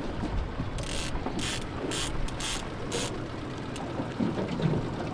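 Fishing reel clicking in about five short ratcheting bursts, roughly half a second apart, over a steady low rumble.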